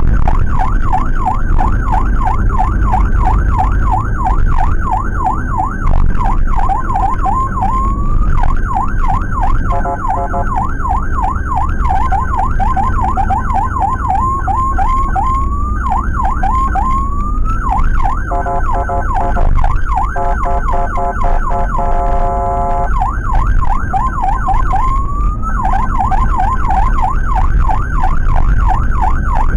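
An ambulance's electronic siren heard from inside the van's cabin, cycling a fast yelp with a few slower rising sweeps, switching briefly to a steady horn tone about ten seconds in and again for several seconds past the middle. The engine and road noise run underneath.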